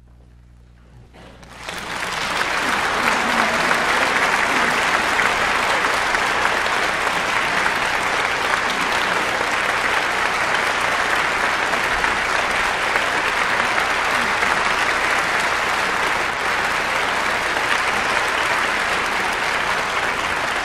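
Concert hall audience applauding, breaking out about a second and a half in after a brief hush and then going on steadily.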